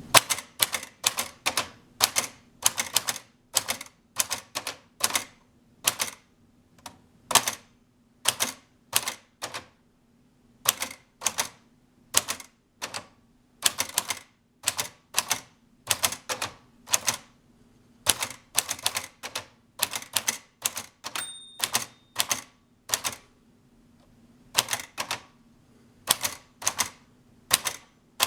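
Marxwriter toy typewriter, circa 1975, being typed on: sharp irregular key strikes about two a second, with a few short pauses. A brief ringing tone sounds about three-quarters of the way through.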